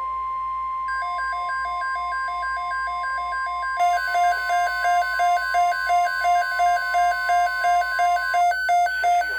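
Emergency Alert System alert tones: a steady single-pitch warning tone, joined about a second in by a fast two-pitch alternating beep that gets louder about four seconds in. The steady tone cuts off about a second before the end while the beeping carries on.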